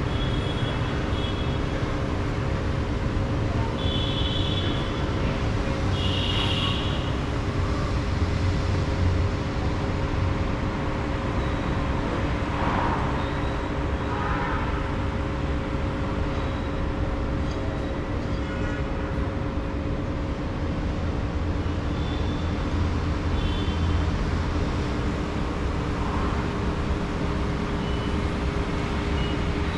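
Steady city din from an elevated metro station: a low traffic rumble under a constant machinery hum. A few short high-pitched sounds come through near the start.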